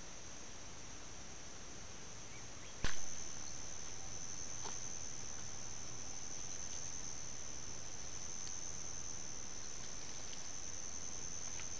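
Steady high-pitched drone of insects, typical of crickets, over a trail camera's microphone hiss, with one sharp click about three seconds in where the recording switches to another camera.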